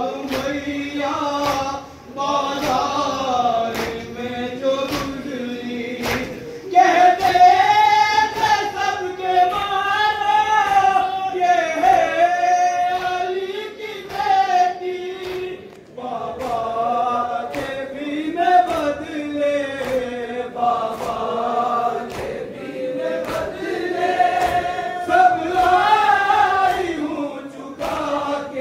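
A noha, a Shia mourning chant, sung by voices in slow melodic phrases, with a sharp regular beat about once every three-quarters of a second.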